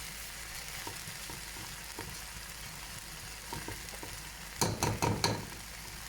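Rice, meat and peas sizzling in a pot while being stirred, with a spoon knocking the pot now and then and a short run of louder scraping and knocks about four and a half seconds in.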